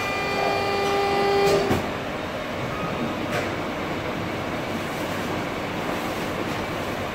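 Hydraulic press running, its pump giving a steady high whine that cuts off with a clunk about a second and a half in, after which a steady machine hiss goes on.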